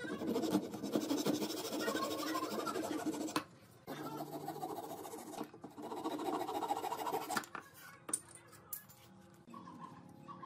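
Hand saw cutting through the ends of thin wooden slats, in two runs of rapid strokes of about three and a half seconds each with a short break between. A few light knocks follow near the end.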